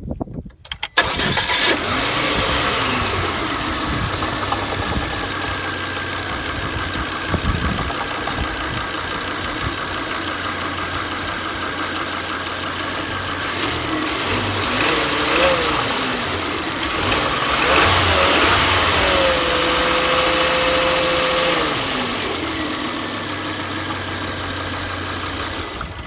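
Car engine starting about a second in and running, with the pitch rising and falling as it is revved several times in the second half, held up briefly, then let back down to idle. An unexplained extra noise from the engine or car is what the owner wants heard.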